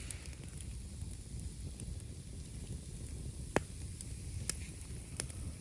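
Campfire crackling: a few sharp, scattered pops, the loudest about three and a half seconds in, over a low steady rumble.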